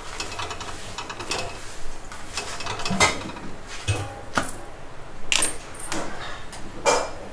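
Slotted spatula scraping and tapping on a flat tawa as a chapati is pressed and flipped: scattered short clicks and scrapes, with a soft thump about four seconds in as it turns over.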